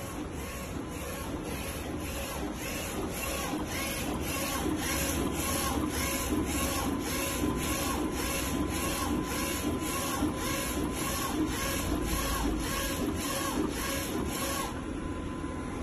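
DTF (direct-to-film) printer printing, its print-head carriage passing back and forth with a rhythmic swish about twice a second over a steady mechanical hum. Near the end the passes stop and only a steady fan-like whir remains.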